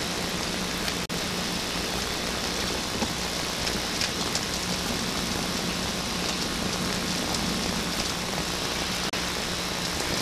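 Steady hiss with a low hum from a noisy analog videotape soundtrack, cutting out for an instant twice.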